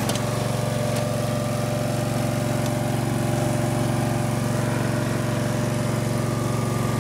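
The engine of a Toro Greensmaster 3100 riding greens mower running steadily at an even speed, with a constant low hum.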